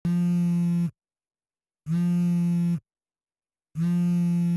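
Mobile phone buzzing on vibrate: three steady low buzzes, each just under a second long and about two seconds apart, signalling an incoming call.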